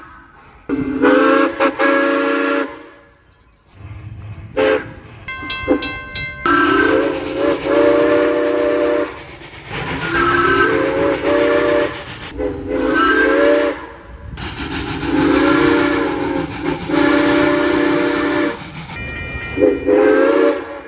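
Steam locomotive whistle sounding a series of blasts with steam hiss under the tone. A short blast comes first, then a few quick toots, then several long blasts; some of these slide up in pitch as the whistle opens.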